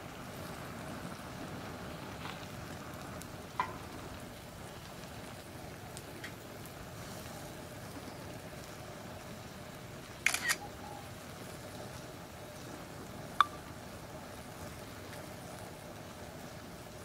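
Open fire burning over a bed of plastic disposable lighters and cardboard, a steady hiss broken by sharp pops and cracks: one about three and a half seconds in, a quick cluster of three around ten seconds, and another about thirteen seconds in.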